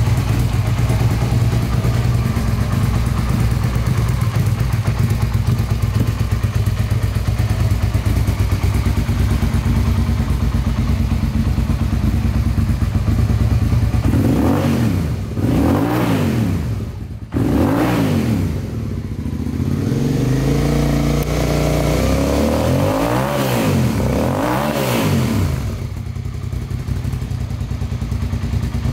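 Suzuki SV650S's 645 cc V-twin engine idling steadily, then blipped on the throttle from about halfway through. There are five or so quick revs, each rising and falling back to idle, in two pairs and one single, with the last pair near the end.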